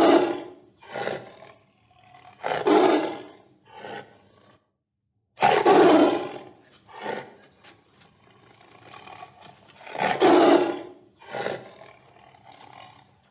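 A large wild animal calling: a series of loud, deep calls, each followed by a shorter, softer one, with a brief silence about four and a half seconds in.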